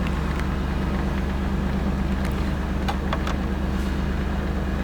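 1988 Camaro IROC's 350 Tuned Port Injection V8 idling steadily just after a cold start, idle speed where it should be.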